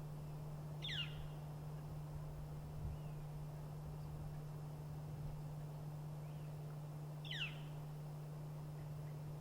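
A bird calling twice: a short, sharp call sweeping steeply down in pitch, about a second in and again about six seconds later, over a steady low hum.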